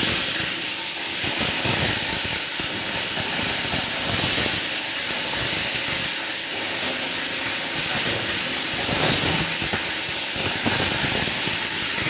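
Heavy-duty plastic scrap grinder running, with a steady loud noise and a dense stream of irregular crackles and knocks as it chops plastic scrap.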